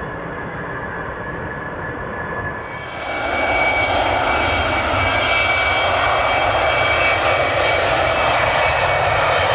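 Airbus A320's CFM56 jet engines on the landing rollout, a steady rumble with a faint whine. About three seconds in the sound switches abruptly to a louder jet at takeoff power, an Embraer ERJ-145's turbofans with a high whine over a broad roar.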